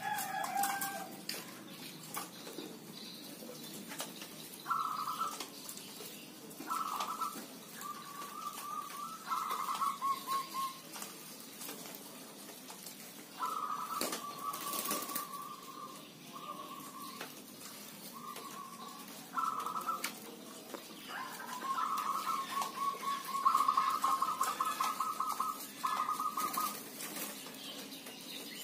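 Caged zebra doves cooing, several birds calling in turn. Each phrase is a run of fast, trilling coos, most under a second, with a longer stretch of several seconds near the end.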